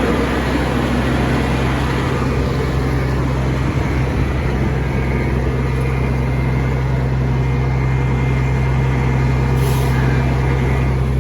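Fire truck engine running, a loud, steady low drone that picks up about half a second in and then holds.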